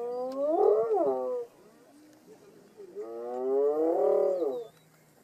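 Spotted hyenas calling: two long drawn-out calls, each rising in pitch, the first falling away at its end after about a second and a half, the second starting about three seconds in and lasting nearly two seconds.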